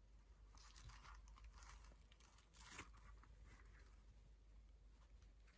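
Faint tearing and crinkling of plastic packaging being worked open by hand, in a few brief scratchy bursts, the strongest a little past halfway.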